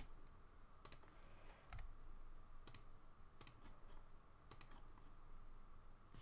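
Faint clicks of a computer mouse and keyboard, about one a second and slightly irregular, over a faint steady hum.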